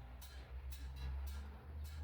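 Background music with a steady beat: deep bass under a crisp tick about twice a second.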